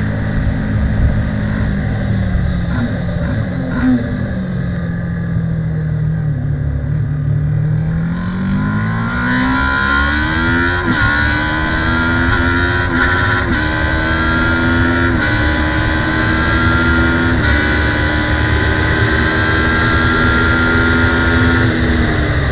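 Kawasaki ER-6 650 cc parallel-twin race bike heard onboard: the engine note falls as the bike slows, then climbs hard from about eight seconds in, with several quick upshifts as it accelerates, over a steady rush of wind.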